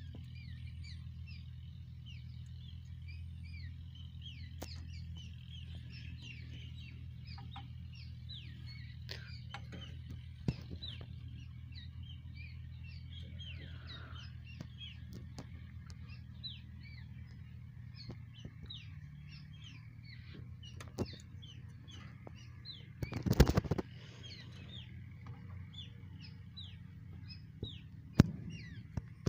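Birds chirping over and over, with a steady low hum underneath and a few sharp clicks as wires are handled. A brief loud rustling burst about three-quarters of the way through is the loudest sound.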